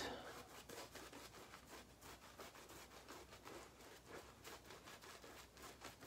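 Faint, quick swishing strokes of a shaving brush working an overly wet, airy lather over the face.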